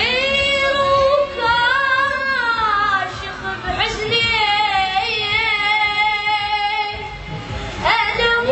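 A high-pitched solo voice singing long, drawn-out notes that bend and waver, in three phrases with short breaths between them.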